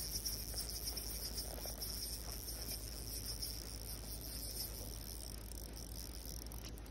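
Small spinning reel giving off a steady high-pitched whirr while a hooked trout is played in toward the landing net, fading out near the end.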